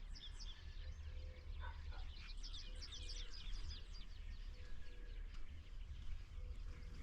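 Small birds chirping, many quick high chirps overlapping, busiest from about two to four seconds in, over a faint low rumble.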